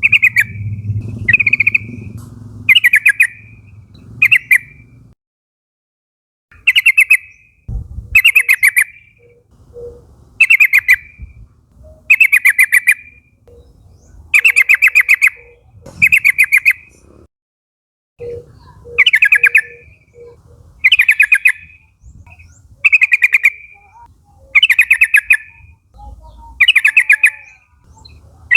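Yellow-vented bulbul (trucukan) calling: a short, rapid bubbling phrase repeated about every one to two seconds, with two brief pauses.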